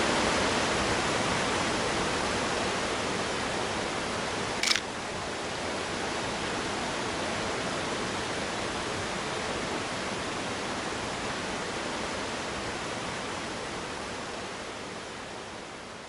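Steady rush of creek water and waterfall, with a single sharp click about five seconds in: the shutter of a Nikon film SLR firing. The water sound fades out near the end.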